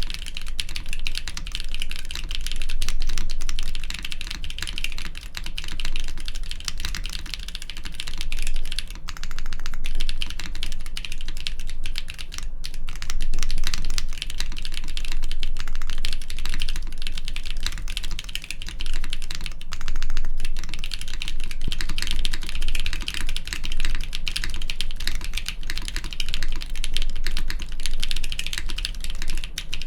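Steady, fast typing on a mechanical keyboard fitted with doubleshot keycaps: a dense run of keystroke clacks.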